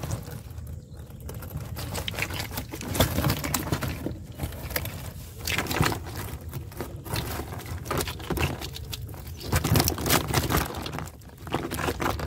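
Live fish dropping and flapping against a woven plastic basket as they are shaken out of a fishing net, with the net rustling: an irregular patter of slaps and knocks.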